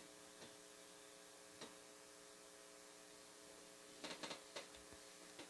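Near silence: a faint steady electrical hum with a few soft clicks and taps from an electric guitar being handled, a cluster of them about four seconds in.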